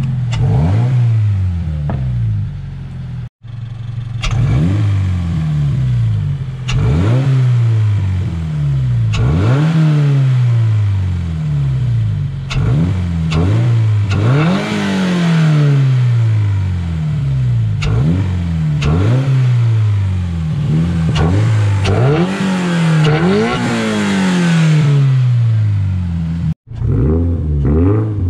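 2023 Toyota GR86's 2.4-litre flat-four engine revving up and down over and over, each rev climbing quickly and falling back within about a second. Loud intake sucking noise comes from the ram-air intake snorkel, which is running with the front bumper off. The sound drops out briefly twice.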